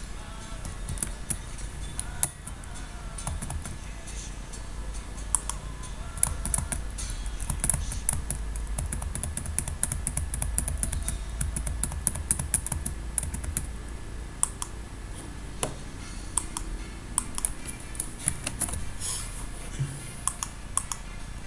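Irregular clicks and taps of computer keyboard keys and mouse buttons over a steady low hum.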